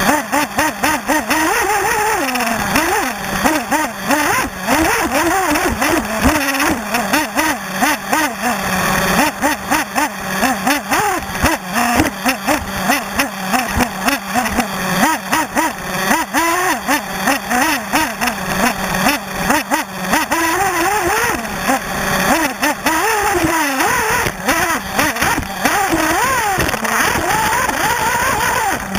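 Nitro glow engine of a 1/8-scale RC buggy, heard from a camera mounted on the car, revving hard and dropping back over and over, about once every second or two, as the car accelerates and brakes around the dirt track. Short knocks from the chassis and tyres hitting the ground are mixed in throughout.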